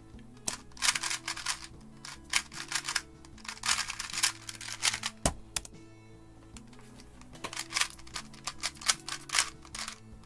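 GAN 251M Leap 2x2 magnetic speed cube being turned fast: rapid plastic clicking and clacking in two flurries, with one sharp click in the pause between them. Quiet background music runs underneath.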